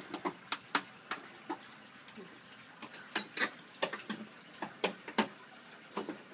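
Irregular sharp clicks and light plastic knocks, about twenty in six seconds, as a plastic panel is worked loose and unclipped from in front of an ice machine's evaporator.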